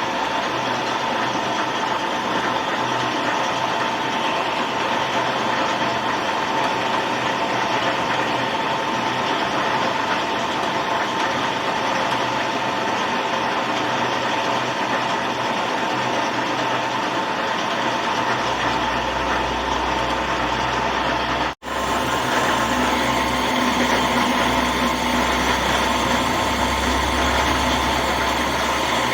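Workshop machine running steadily with a constant whine and a low hum. The sound cuts off briefly about two-thirds of the way through and resumes with a heavier low rumble.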